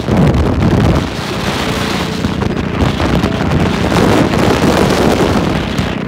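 Loud wind rushing over the microphone with road and traffic noise from a vehicle moving fast along a highway, starting and stopping abruptly.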